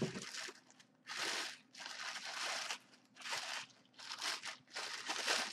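Clear plastic bagging crinkling as hands grip and pull at it, in about six short rustling bursts.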